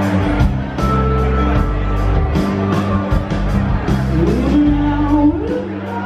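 Live rock band playing, with drums, electric bass and electric guitar and a steady beat of drum and cymbal hits. A rising slide in pitch comes a little after four seconds in, and another near five.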